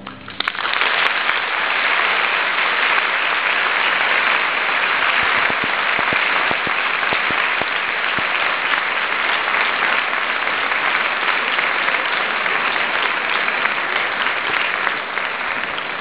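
Large audience applauding at the end of a string orchestra's performance, breaking out about half a second after the final chord stops and starting to die down near the end.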